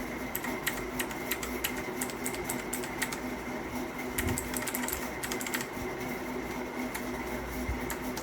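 Typing on a Havit KB498L mechanical keyboard with blue switches: a run of irregular, clicky keystrokes over a steady faint hum.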